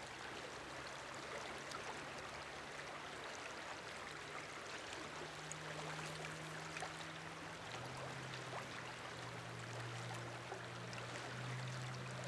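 River water flowing and rippling in a steady rush, with a faint low hum underneath that shifts in pitch a couple of times.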